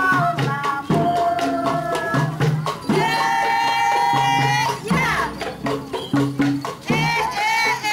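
Music with a jingling, rattling percussion beat, a repeating bass figure and a melody of held notes, one long note about three seconds in.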